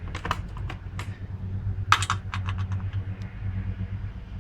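Metal hand wrenches clicking and clinking as they are handled and tried on a hydraulic hose fitting, with a sharp clack about two seconds in and a quick run of small clicks after it. A steady low hum runs underneath.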